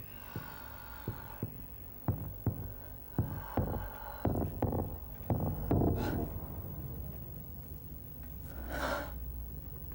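A run of sharp knocks over a low steady hum, at first spaced out, then coming quicker and louder for a few seconds before stopping. Near the end comes a short rushing hiss.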